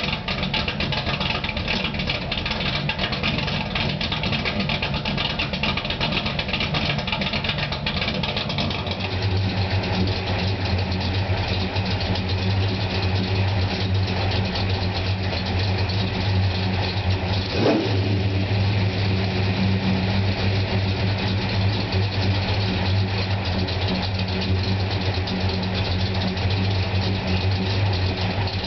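Pontiac GTO V8 running steadily through an exhaust fitted with electric cutouts. About a third of the way in the note changes to a smoother, steadier drone, and a brief blip comes a little past the middle.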